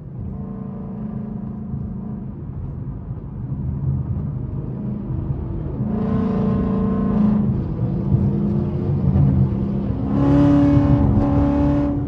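Car engine noise heard from inside a Ford Mustang's cabin while driving: a steady low drone that grows louder, with a loud held engine note about six seconds in and another, louder one about ten seconds in.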